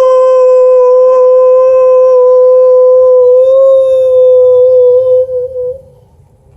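One long, loud howl held at a nearly steady pitch. It starts abruptly and dies away after about six seconds.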